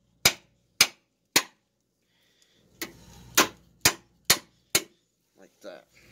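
Rubber mallet striking the new brake hose's retaining clip at its frame bracket to drive it home: three sharp blows, a pause of about a second and a half, then five more in quick succession.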